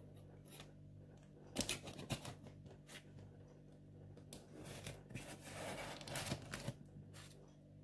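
Faint scraping and scratching at the taped edges of a cardboard box as a small blade and fingers pick at the packing tape, with a few sharp clicks and taps and a longer scratching stretch about five seconds in.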